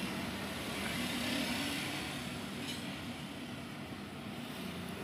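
Steady outdoor street background noise: a low hum of road traffic with no single event standing out.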